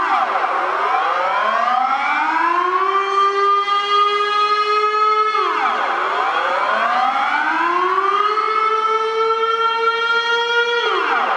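Outdoor civil-defence warning siren sounding its monthly test signal. It wails in a repeating cycle about every five and a half seconds: the pitch drops sharply, climbs over a couple of seconds, holds steady, then drops again. The drops come at the start, about halfway through and near the end.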